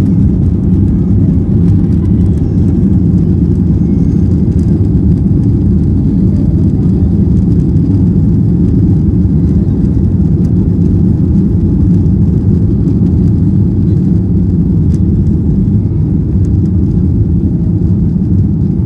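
Boeing 737-800 cabin noise during the climb after takeoff: a steady, loud, deep rumble of the CFM56-7B engines at climb power mixed with rushing airflow, heard from inside the cabin.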